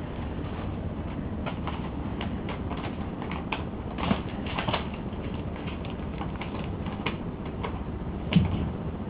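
Kittens playing: scattered light taps and clicks of paws and claws scrabbling and batting, with a few louder knocks about four seconds in and again near the end, over a steady low background hum.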